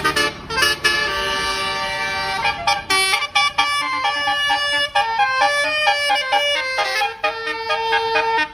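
Bus telolet horn, a 12-note set of musical horns, playing a fast tune of short, stepped notes, often several notes sounding together.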